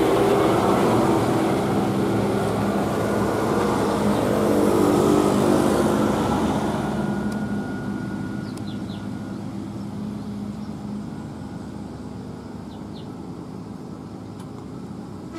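Heavy road vehicle's engine running as it passes on the road, loud for the first six seconds or so and then fading away, leaving a lower steady background.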